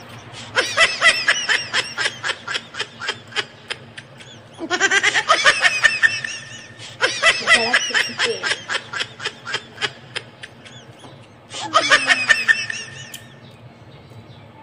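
High-pitched giggling laughter in quick, even pulses, heard as several bursts that start abruptly, the last near the end. It has the sound of a laughter sound effect added in editing.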